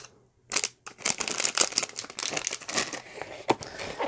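Plastic packaging crinkling and rustling as it is handled: a brief crackle near the start, then near-continuous rustling from about a second in.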